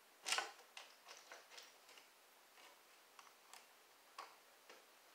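Small metal clicks and ticks of a bolt and washer being fitted and hand-threaded into a pool table leg, at an uneven pace; the sharpest click comes about a third of a second in.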